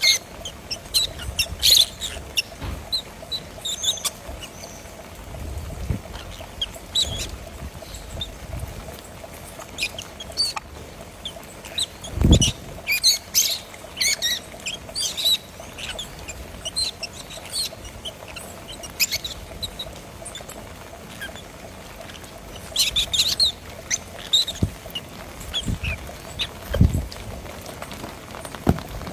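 Birds chirping and calling in short, scattered notes, with a faint steady hum underneath and a low thump about twelve seconds in.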